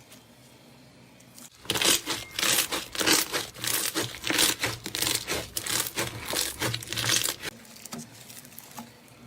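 Slime being squeezed and worked by hand, giving dense, rapid crackling and crinkling that starts about a second and a half in and dies away near the end.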